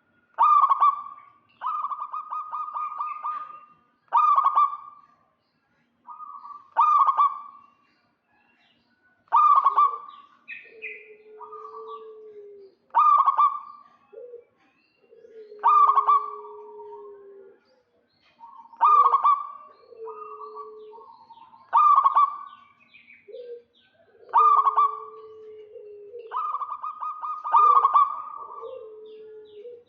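Zebra doves (perkutut) calling: loud, rolling coos repeat about every three seconds. From about a third of the way in, a lower, drawn-out note from a second bird answers between them.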